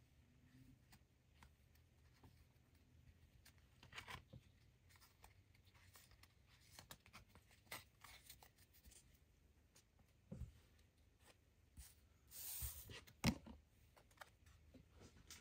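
Faint handling of a stack of trading cards: cards sliding and flicking against each other as they are leafed through one by one. Near the end comes a louder rustle, followed by one sharp click.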